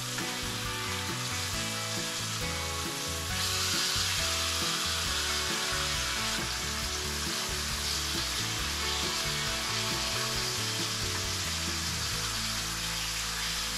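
Meat frying in a hot pan: a steady sizzle that gets louder about three seconds in.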